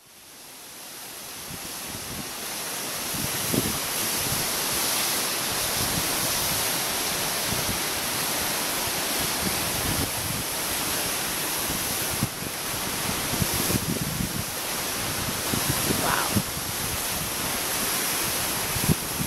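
Wind gusting on the microphone over a steady rushing noise, fading in over the first couple of seconds.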